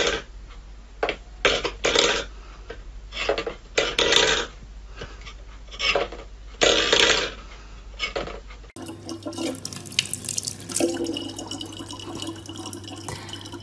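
A stainless steel pet bowl being pawed across a wooden floor, scraping and clattering in irregular bursts. After about nine seconds this gives way to water running steadily from a tap into a plastic bottle.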